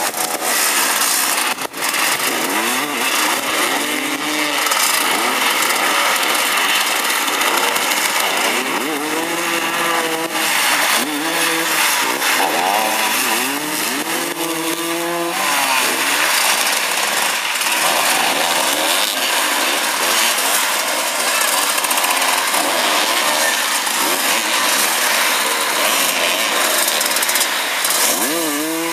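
Several motoball motorcycles' engines running and revving as the riders fight for the ball, the revs rising and falling over and over, most strongly from about nine to sixteen seconds in.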